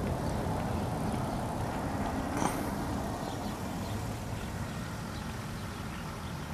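Distant motor vehicle engine rumble, steady and slowly fading, with one faint click about two and a half seconds in.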